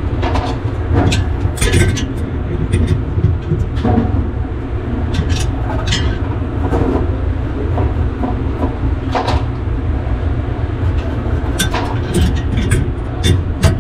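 Metal tools clinking and knocking against a gear puller clamped on a convection oven's stuck fan hub as it is tightened with an adjustable wrench, a sharp knock every second or two with a quick cluster near the end. A steady low rumble runs underneath.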